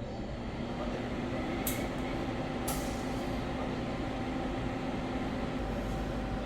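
Kia Morning's engine running steadily with a humming drone, during an air-conditioning refrigerant check. Two short, sharp hissing clicks cut in about a second and a half and two and a half seconds in.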